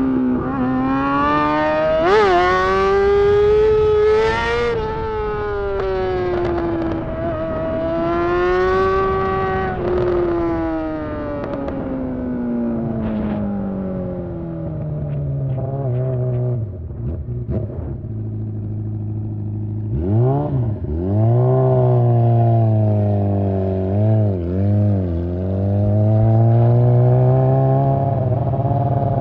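Honda CBR600 inline-four engine running with no exhaust fitted, revving up and down as it pulls. The revs climb in the first few seconds, fall steadily to a low, rough note around sixteen seconds in, then rise sharply again with a few quick blips and a steady climb near the end.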